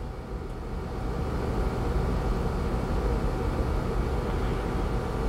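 A steady low mechanical rumble with a faint hum over it, growing louder about a second in and then holding steady.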